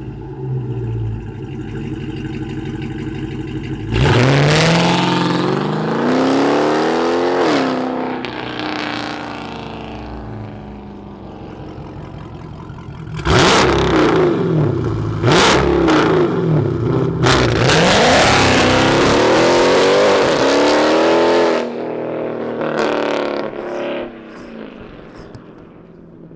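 Hemi V8 car engine idling, then revved up and back down once about four seconds in. Later comes a longer, louder run with the revs climbing and dipping several times before it eases back toward idle.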